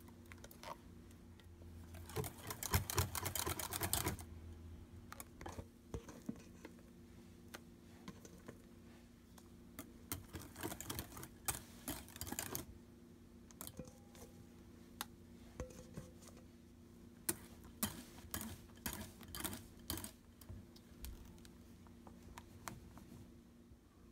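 Wire whisk stirring a thick cream-cheese and cream mixture in a glass bowl, its wires clicking against the glass in quick runs of taps with pauses between.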